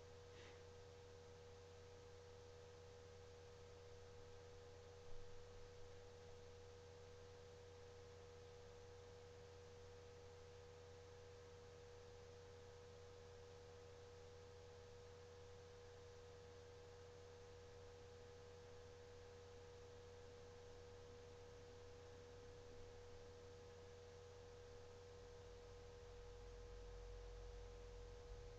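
Near silence: a faint, steady electrical whine at one pitch over a low hum, with a single soft tick about five seconds in.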